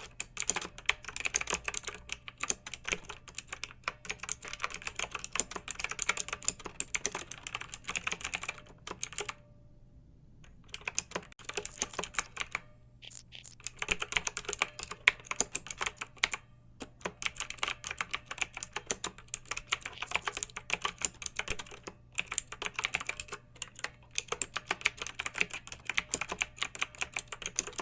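Typing on a computer keyboard: fast runs of key clicks broken by short pauses, the longest about nine seconds in.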